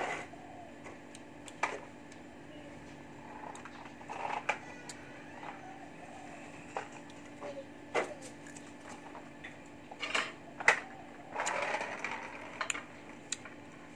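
Scattered sharp clicks and short rustling bursts as fruit is handled and eaten from a plastic plate, over a faint steady low hum. The loudest click and burst come about three-quarters of the way through.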